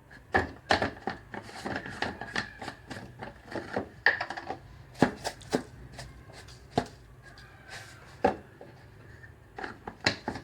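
Kitchen handling noise: irregular sharp clicks and taps of a utensil and hard crab-shell pieces knocking in a dish while the marinade is added, thick for the first four seconds, then scattered.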